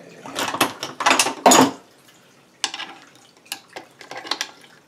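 Metal parts clattering and scraping against the aluminium crankcase of a 1980 Suzuki FZ50 engine being worked on by hand: a dense run of clatter in the first two seconds, then a few separate light clicks.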